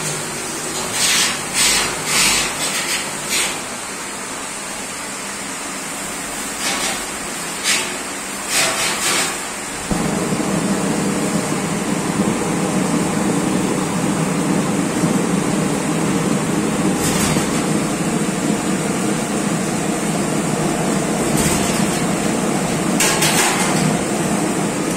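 Lit burners of a commercial stainless-steel gas range burning with a steady rushing noise, broken by several sharp knocks in the first ten seconds. About ten seconds in the flame noise suddenly becomes louder and deeper and stays so.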